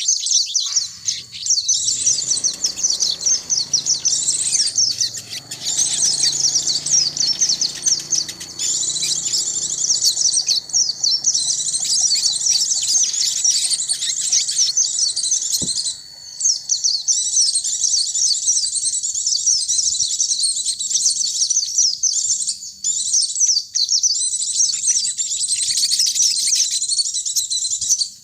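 Pleci (white-eye) and sogon birds singing: a fast, high-pitched twittering chatter that runs almost without a break, pausing only briefly a few times.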